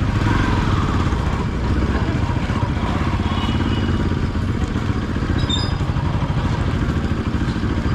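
Motorcycle engine running steadily while riding, with a few short high tones from about halfway through.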